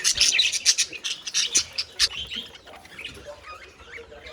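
Budgerigars chattering, a quick run of chirps and squawks, densest in the first second and a half and thinning out after.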